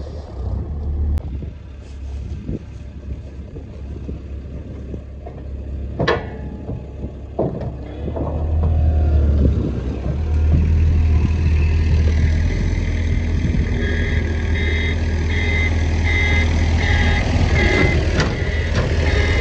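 Avant 635 mini loader's engine running and growing louder as the machine backs up steel ramps. A reversing alarm starts beeping about one and a half times a second about two thirds of the way in, and a couple of sharp metallic clanks come earlier.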